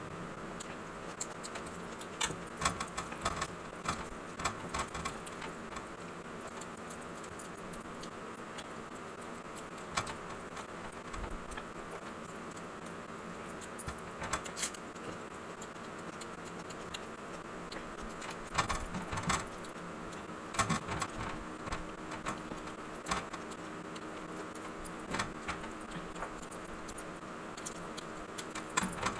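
Close-miked eating sounds: irregular small clicks and clinks, in little clusters, over a steady background hiss.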